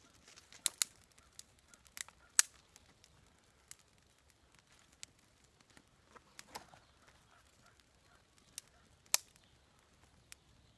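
Small campfire of twigs and kindling crackling, with scattered sharp pops and snaps at uneven intervals as the young fire is fed sticks.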